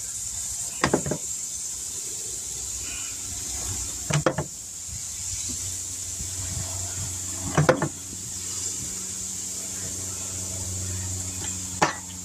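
Metal barbecue fork clinking against the grill grate and the pan as chicken pieces are laid on the grill: four short clusters of clicks a few seconds apart, over a steady hiss from the grill.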